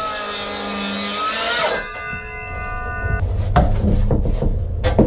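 A power tool runs for about two seconds with a slightly rising whine and stops abruptly, leaving a ringing tone for about a second. Then come several knocks and clatter of wood.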